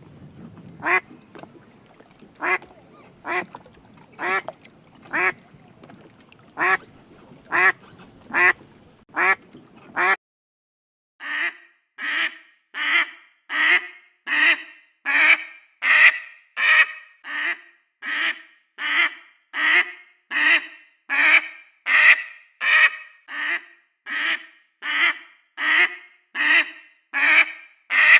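Duck quacking, repeated short quacks: first an irregular series over light background noise, then, after a short break about ten seconds in, a clean, even run of about one and a half quacks a second.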